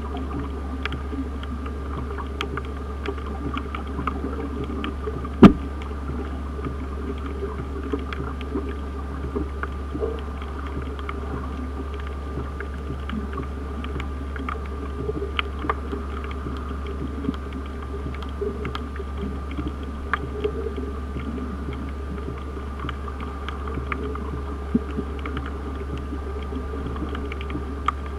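Underwater ambience picked up by a submerged camera: a steady low rumble and a faint steady high tone, with scattered small clicks and crackles throughout and one much louder knock about five seconds in.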